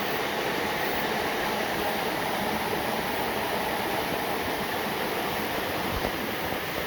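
Waterfall water falling in a steady, unbroken rush.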